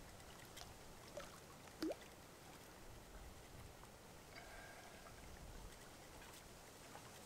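Near silence with faint, irregular scrapes and light clicks of Parmesan cheese being grated by hand, and one short rising squeak about two seconds in.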